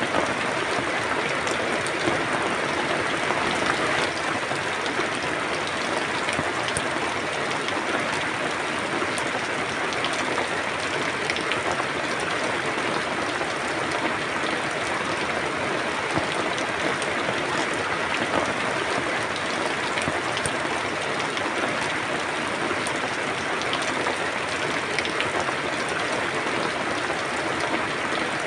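Steady rain falling, with the patter of many drops striking a surface.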